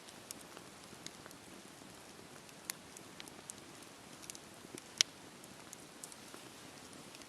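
Wood fire crackling: a faint steady hiss with scattered, irregular sharp pops, the loudest about five seconds in.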